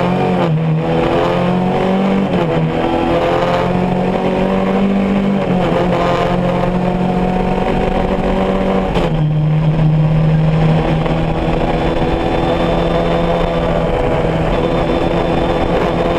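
Rally buggy's engine under load at speed, heard from inside the cockpit over tyre and wind noise. Its pitch climbs and falls with the throttle and gear changes, with a sudden drop about nine seconds in.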